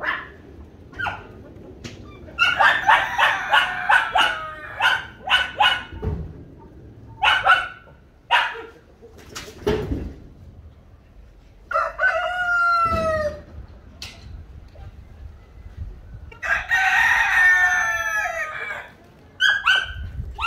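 Brahma roosters crowing twice in the second half, the later crow longer, with short clucks and calls scattered before and between.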